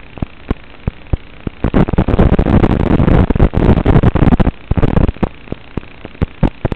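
Static from the goggles' analog FPV video receiver, recorded by the DVR: a steady hiss with scattered sharp clicks. A couple of seconds in it swells into a dense, loud crackle for about three seconds, then drops back to hiss and clicks. This is typical of the analog video signal breaking up.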